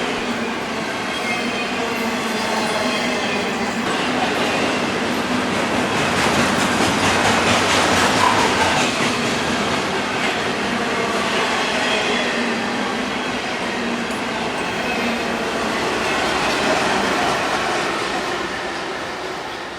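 BNSF intermodal freight train rolling past steadily, its wheels clattering on the rails with a faint squeal. Fades out near the end.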